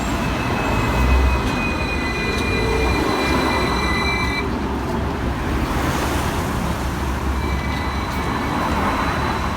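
Hong Kong double-decker tram on street tracks with a low rumble, its steel wheels giving a high, steady squeal that slides slightly lower and cuts off about four and a half seconds in; a fainter squeal returns a few seconds later.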